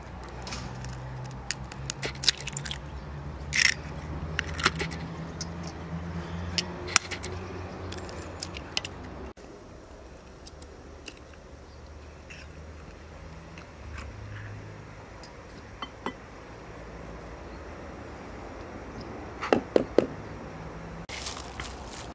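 Eggs being cracked on the rim of an enamel bowl: scattered sharp taps and clicks of shell, with a quick cluster of clinks near the end. A low steady hum runs under the first half.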